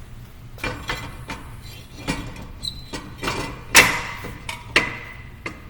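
Brake rotor clanking against the hub and steel dust shield as it is fitted: a series of sharp metallic knocks with short ringing, the loudest a little past halfway and another about a second later. The dust shield came bent and catches the rotor.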